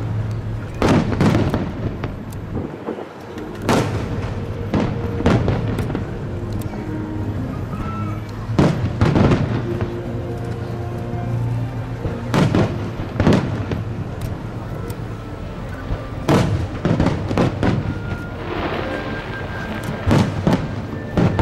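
Aerial fireworks shells bursting one after another, a dozen or more booms at uneven intervals, over music playing throughout.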